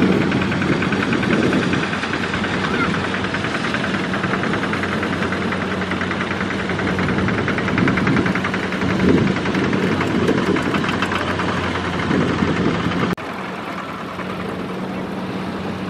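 Kubota RT120 walking tractor's single-cylinder diesel engine running with a fast, even knocking beat while it pulls a loaded trailer. Near the end the sound drops abruptly to a quieter level.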